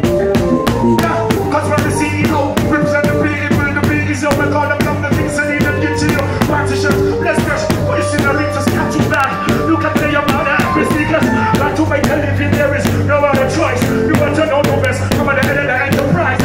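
Live reggae band playing with a steady drum beat, cymbals and a bass line, heard from on stage close to the drum kit.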